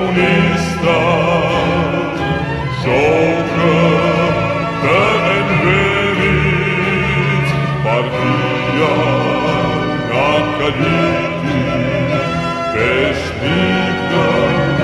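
Slowed-down, reverb-heavy song with voices and orchestra: long sustained sung phrases with wavering vibrato, each new phrase starting every few seconds.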